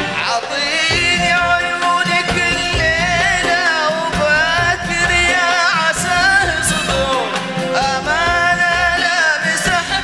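Male voice singing a Gulf Arabic song in long, wavering held notes, accompanied by a live orchestra.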